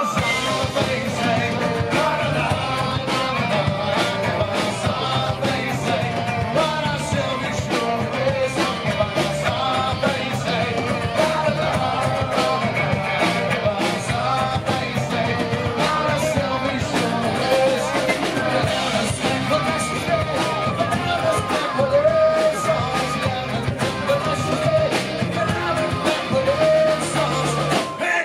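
Live rock band playing steadily: electric and acoustic guitars, bass guitar and drum kit, with a wavering melody line on top.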